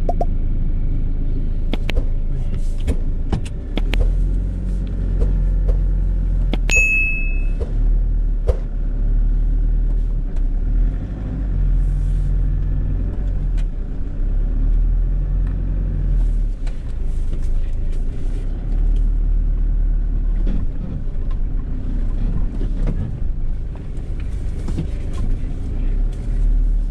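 A Nissan car running with a heavy low rumble, heard from inside while driving. The engine note rises and falls, with scattered knocks and rattles and a brief high tone about seven seconds in.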